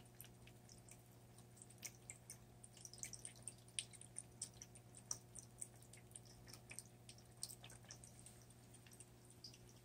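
Scottish Fold cat lapping water from the falling stream of a pet drinking fountain: faint, irregular wet clicks and drips, over the steady low hum of the fountain's pump.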